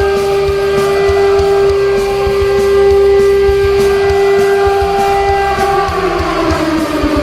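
Ice hockey arena goal horn sounding a steady, loud, multi-tone chord over a rock song's drum beat. About five and a half seconds in, its pitch sags downward as the horn winds down.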